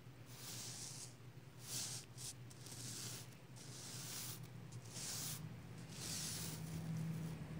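A hand brushing across a reversible sequin pillow, the flip sequins rustling over in a series of short, hissy swishes, one per stroke.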